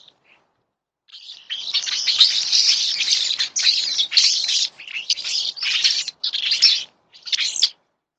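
Wild birds chirping and chattering in busy, high-pitched runs that start about a second in and pause briefly near the end.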